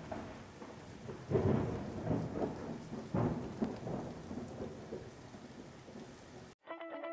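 Thunderstorm sound effect: steady rain with rolling thunder rumbles about one and a half and three seconds in. It cuts off suddenly near the end, and plucked guitar music begins.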